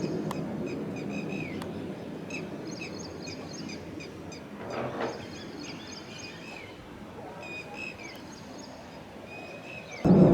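Birds calling repeatedly in short, bending chirps over a faint low rumble. Right at the end, the loud noise of a low-flying military jet comes in suddenly.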